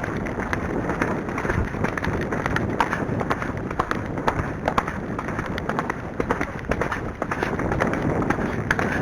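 Arabian horse cantering: a steady run of hoofbeats with tack and movement noise, over wind rushing across the microphone.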